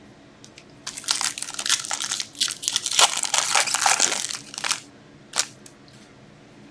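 Plastic foil wrapper of a hockey card pack being torn open and crumpled in the hands: a dense crackle starting about a second in and lasting about four seconds, then a single sharp click.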